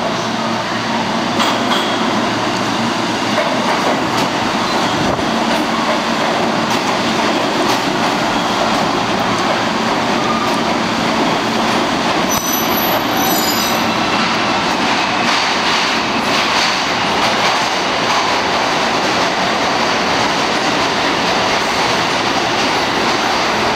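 R46 subway train pulling into an underground station and running past along the platform, a steady loud rumble of wheels on rails. A brief high-pitched squeal comes about halfway through.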